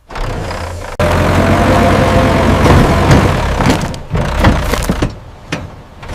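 Machine engine running, jumping suddenly louder about a second in to a loud, steady rumble. Several knocks and clanks sound in the second half.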